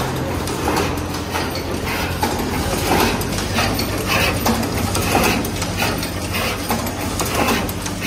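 Automatic two-pin power plug assembly machine running: mechanical clacks and clicks from its moving fixtures come about twice a second, over a steady hum.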